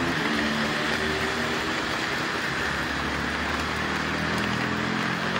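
Steady hiss of heavy rain falling on a wet road, with the low hum of motorcycle engines passing through the rain near the start and again about three and a half seconds in.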